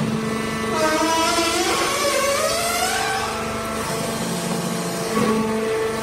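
Hydraulic wood-chip baling press running with a steady motor-and-pump hum. A whine rises in pitch over a couple of seconds starting about a second in, and the hum drops lower for a while near the end.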